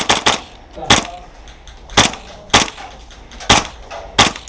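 Airsoft gunfire: about eight sharp single cracks at uneven intervals, some close together near the start.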